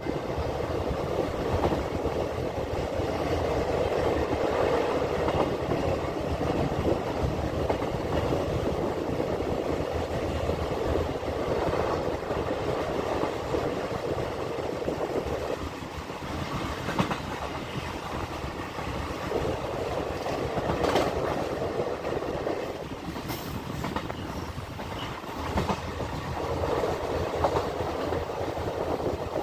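Moving passenger train heard from beside the coach: a steady rumble of the wheels on the rails, with rapid clickety-clack over rail joints and a few sharper knocks as the coach runs through the station at speed without stopping.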